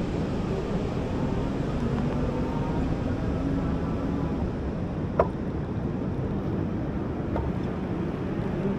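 Steady rushing wind noise from riding a bike along a beach, with faint humming tones underneath and one sharp click about five seconds in.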